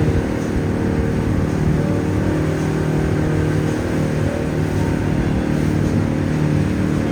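Engine of a river shuttle boat running steadily under way: an even, low hum that holds the same pitch throughout, with a rushing hiss above it.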